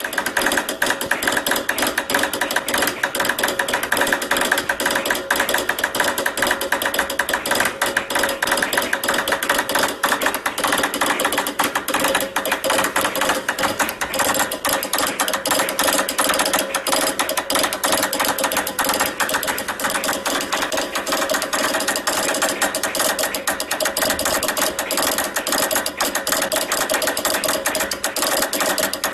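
Morse code keyed very fast on a telegraph key: a dense, continuous stream of rapid mechanical clicks with no pauses.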